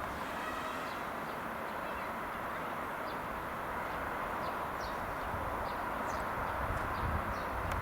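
Steady outdoor background hiss with scattered short bird chirps every second or so.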